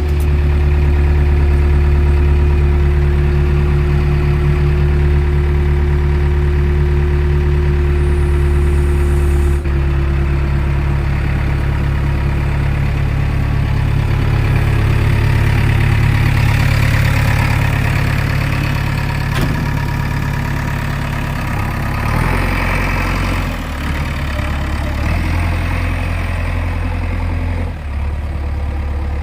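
JCB 3DX backhoe loader's diesel engine running steadily, its note shifting several times from about twenty-two seconds in.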